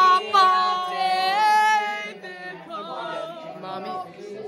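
Teenage girls singing unaccompanied, with long held notes for about the first two seconds, then softer, looser voices.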